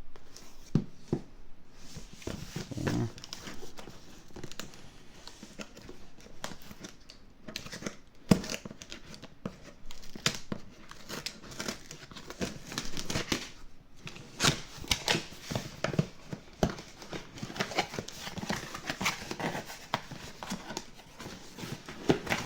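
A tool's retail box being opened and its packaging handled: tearing and crinkling, with many small irregular clicks and a sharp knock about eight seconds in.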